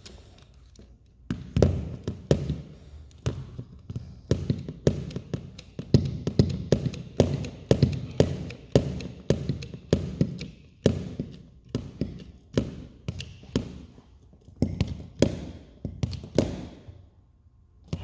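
Hand-pumped hydraulic crimper being worked stroke after stroke to press a copper lug onto heavy-gauge battery cable. It makes a rapid series of clicks and knocks, about two to three a second, that stops about a second before the end.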